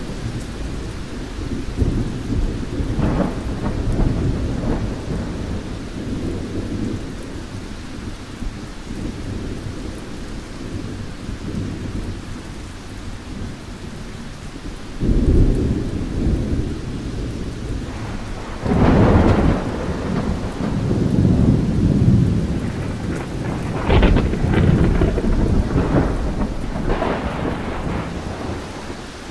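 Thunderstorm: steady rain with low rolling thunder. Louder cracks of thunder break in about halfway through, again a few seconds later, and several more times near the end.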